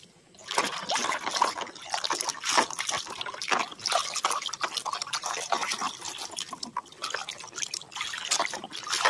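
Water sloshing and splashing in a plastic basin as a plastic toy motorcycle is swished and scrubbed by hand through soapy water: irregular splashes and drips, starting about half a second in.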